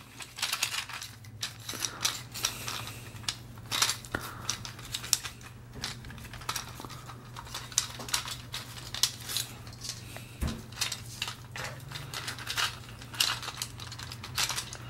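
Irregular plastic clicking and clacking from hand-worked Iron Man and Hulk battle-toy figures on their controller bases as they are made to fight, over a low steady hum.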